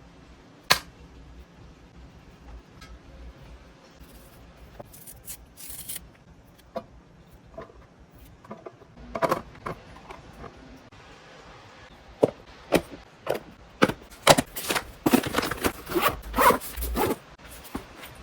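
Kitchen handling noises as a lunchbox is packed: a sharp click about a second in, then scattered scrapes and knocks that turn into a dense run of rasping scrapes and clatter in the last six seconds.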